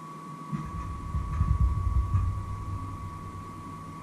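Low rumbling with a few dull thumps for about two seconds, from the man's handling work, over a steady high-pitched whine.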